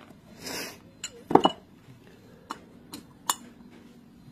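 Metal tools clinking and knocking on metal during valve guide work on a motorcycle cylinder head: scattered light clicks, a brief rushing noise about half a second in, and a louder double knock about a second and a half in.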